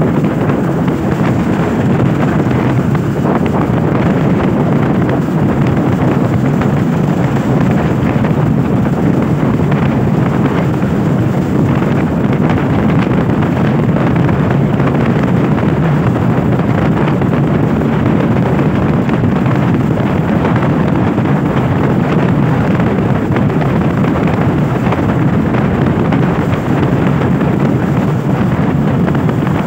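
Steady wind rush buffeting the microphone of a camera on a moving motorcycle, loud and even throughout.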